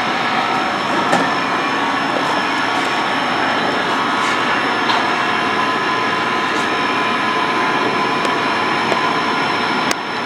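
Onboard sound system of an O-scale three-rail model locomotive sitting idle: a steady loud hiss with soft puffs every second or two.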